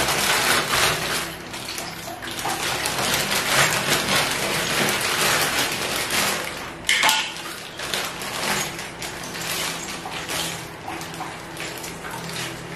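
Clear plastic packaging bags crinkling and rustling as they are handled, with small plastic fittings clicking and knocking against the toilet seat cover; one sharper click about seven seconds in.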